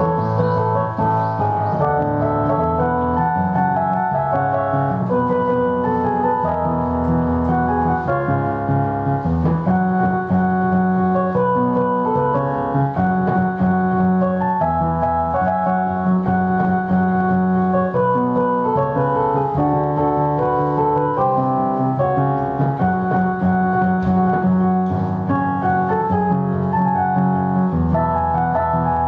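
Columbia upright electric piano played without a break: a pop melody over steady bass chords, with the instrument's unusual, slightly organ-like electric tone.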